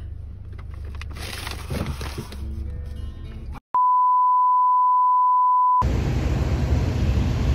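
Low rumble inside a car with some rustling. It cuts off to a steady electronic beep tone at about 1 kHz, held for about two seconds. Then outdoor street traffic noise follows.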